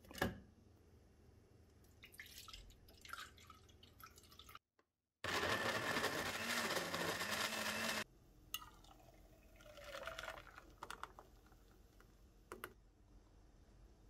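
Countertop blender running for about three seconds, puréeing cooked purple sweet potato; it starts and stops abruptly. Before and after it come softer handling noises and a few light clicks from the jar and lid.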